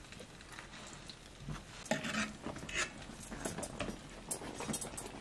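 Metal spatula clinking and scraping against a frying pan as stuffed flatbreads (bolani) are turned in hot oil, in scattered short knocks, over a faint sizzle.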